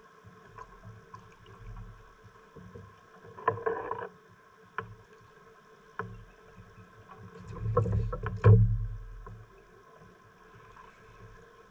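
Scattered knocks and bumps in a small sampan as gear is handled, with a louder cluster of thumps about eight seconds in, over a faint steady hum.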